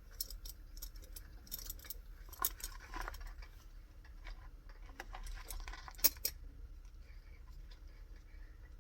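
Small metal parts and tools clicking and clinking as they are handled, a string of irregular sharp clicks with one louder clink about six seconds in, then only faint ticks.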